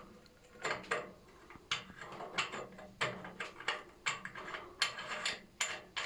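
About a dozen irregular metallic clicks and knocks as a cleaned strainer filter is fitted back into a heating circulation pump's filter housing and its retaining nut is tightened.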